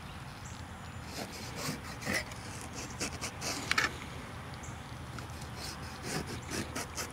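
Fillet knife cutting scores into a scaled whole flounder: several short scraping strokes of the blade through the skin and across the bones, the loudest a little before four seconds in.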